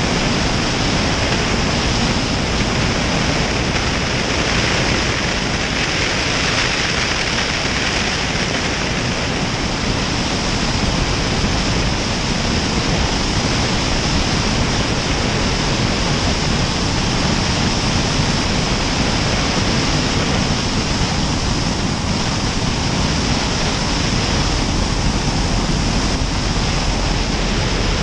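Steady, loud rush of airflow over an action camera mounted outside a Cessna 172 Skyhawk in flight, with no clear engine note standing out of it.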